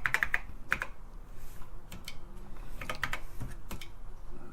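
Keystrokes on a TRS-80 Model I keyboard as a program is typed in: a quick run of several key presses at the start, then irregular single presses and small clusters.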